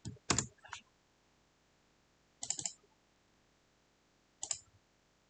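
Scattered clicking from a computer mouse and keyboard: a quick cluster of clicks at the start, another about two and a half seconds in, and a short one near the end.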